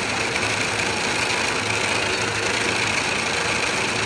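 Chocolate-factory tapping machine vibrating trays of freshly filled chocolate moulds to shake the air bubbles out of the chocolate: a loud, steady vibration noise.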